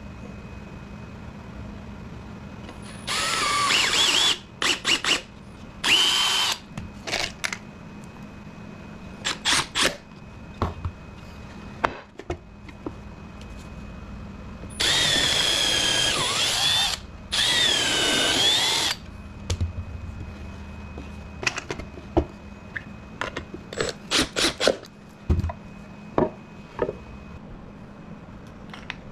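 Cordless drill running into a wooden panel in several bursts: two short ones a few seconds in, then two longer runs of about two seconds each around the middle, the motor's whine dipping and rising in pitch. Short knocks and taps of wood pieces being handled come in between.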